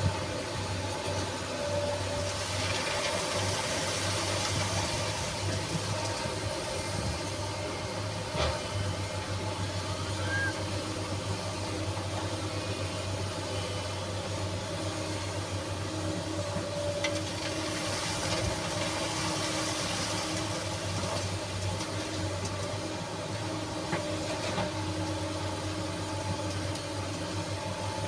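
SANY SY215C excavator's diesel engine running steadily, with a hiss that swells twice as the machine works, and a couple of sharp knocks.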